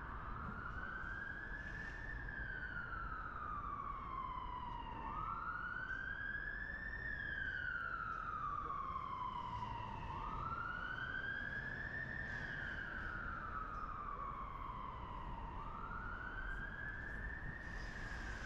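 Emergency vehicle siren on a slow wail, its pitch rising and then falling in a cycle about every five seconds, over a steady low background rumble.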